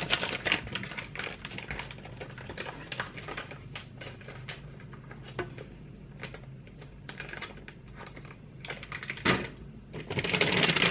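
Clear plastic parts bags being handled, crinkling and rustling with many quick, irregular crackles and clicks. It is busiest at the start and again near the end, where the rustling grows louder.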